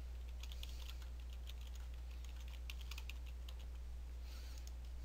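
Computer keyboard being typed on: a quick run of keystrokes for about three seconds, starting about half a second in, over a steady low electrical hum.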